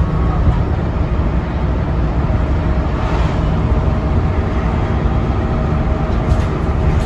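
Dennis Trident double-decker bus under way, heard from inside on the upper deck: a steady low drone of engine and road noise with little change.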